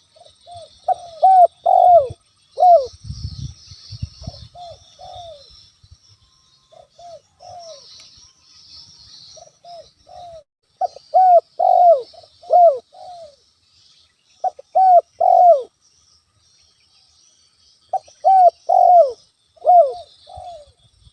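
Spotted dove (tekukur) cooing: groups of short, rolling coo notes repeated every few seconds. A steady high insect buzz runs underneath, and there are a few low thuds about three seconds in.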